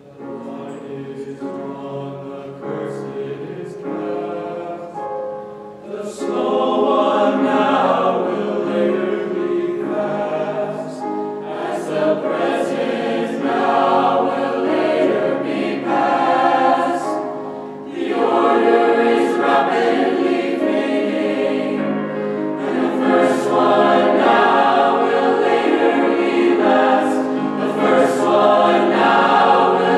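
Mixed-voice school choir singing in parts. The voices come in at the start and grow louder about six seconds in, dipping briefly near the middle before building again.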